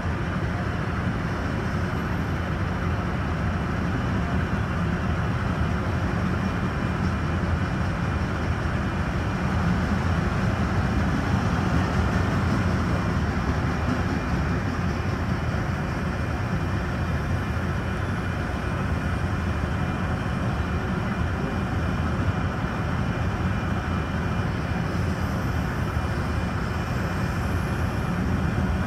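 Freight train of enclosed autorack cars rolling past: a steady rumble of steel wheels on the rails.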